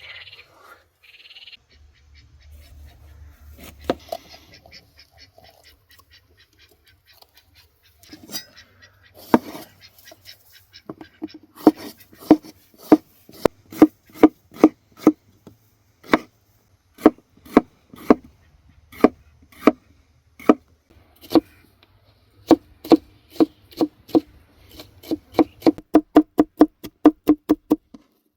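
Repeated sharp knocks, each with a short low ring. They start scattered, then come steadily at about three to four a second in the last few seconds.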